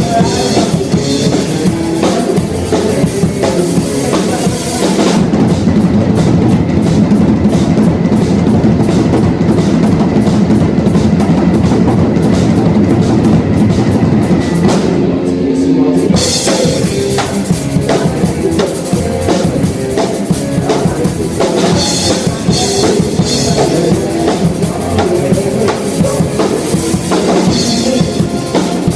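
Live rock band playing a cover song through the stage PA, with the drum kit loudest. The cymbals drop back for about ten seconds in the middle, leaving drums and low instruments, then come back in.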